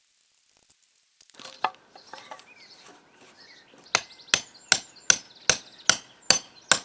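Hammer blows in a steady rhythm, about two and a half a second, starting about four seconds in after a few faint scattered knocks, during work fixing down rail track.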